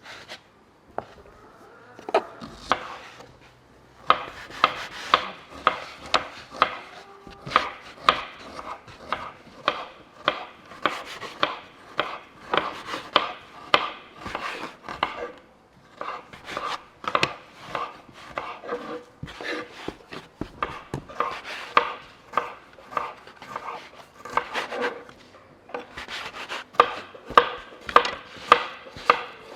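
Steady chopping, sharp strikes at about two a second, starting about four seconds in and pausing briefly twice.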